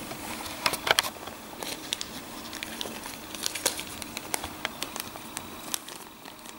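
Plastic zip bags holding silver bullion coins crinkling as they are handled, with many irregular small sharp clicks and crackles.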